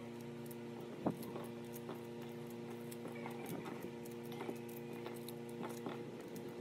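Sweet corn kernels being pried off the cob by thumb, making scattered small clicks and cracks as they break loose and drop into a stainless steel bowl; the sharpest click comes about a second in. A faint steady hum runs underneath.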